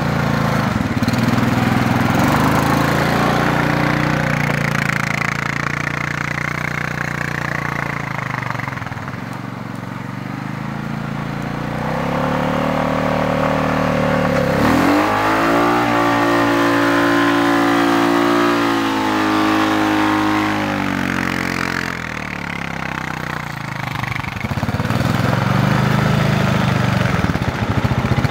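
Honda Rubicon 520 ATV's single-cylinder engine running under load through deep snow, its pitch rising and falling with the throttle. About halfway through it revs up sharply and holds a higher, steady pitch for several seconds, eases off, then climbs again near the end.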